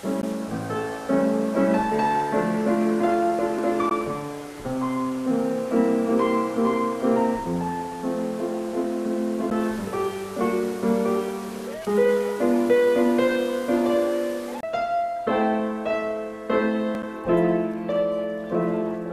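Background instrumental music: a keyboard melody of many short notes over held chords.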